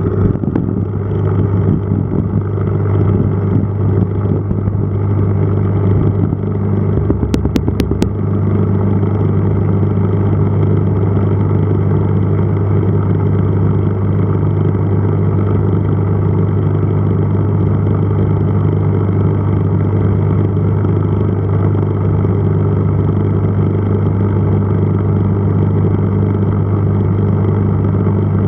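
Aquarium pump humming steadily with a loud low buzz, with a short run of sharp clicks about seven seconds in.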